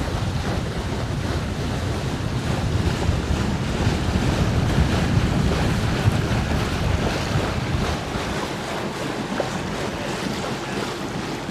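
Wind buffeting the microphone over the rush of water along the hull of a sailboat underway.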